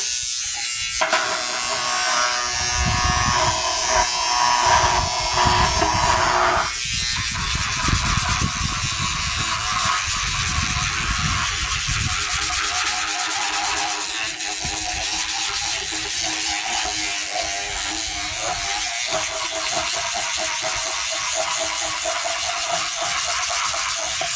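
An old toothbrush scrubbing a satellite dish with soapy water, a steady, rapid rasping scrub.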